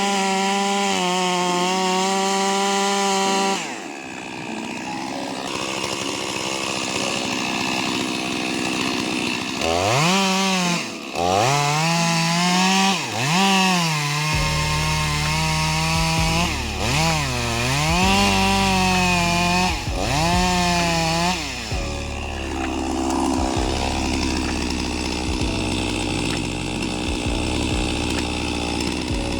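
Chainsaw engine running at high revs, dropping off about four seconds in. In the middle it is revved up and down repeatedly, then it runs lower and rougher near the end, as it would while cutting into a tree trunk.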